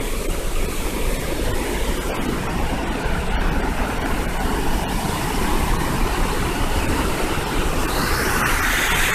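Zongo Falls, a large waterfall, rushing and crashing into its gorge: a steady, dense noise of falling whitewater, a little louder and hissier near the end.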